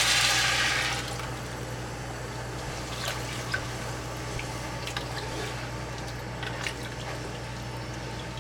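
Frying sizzle in the pot dies down about a second in as chicken stock goes in over the rice, chicken and vegetables. It leaves a quieter liquid sound in the pot with a few small pops and drips.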